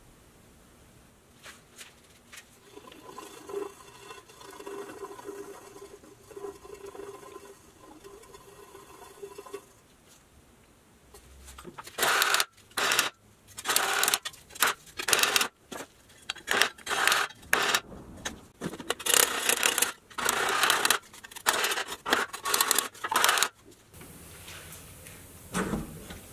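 Hammer striking a rusty pressed-steel Tonka toy truck part clamped in a bench vise: about a dozen loud metallic blows at irregular intervals in the second half. Before the blows, a humming tone comes and goes for several seconds.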